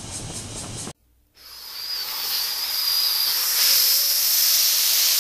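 Background music with a beat stops abruptly about a second in. After a brief silence, a steady high-pitched hiss fades in and holds.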